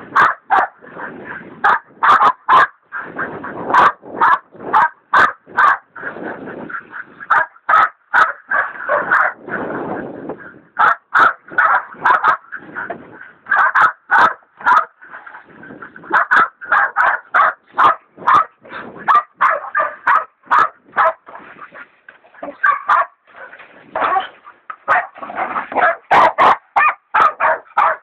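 Hog dogs, one a leopard dog, baying a wild sow hog: a steady run of loud, rapid barks, several a second, the sign of a hog held at bay. Rougher, lower noise runs under the barking in stretches.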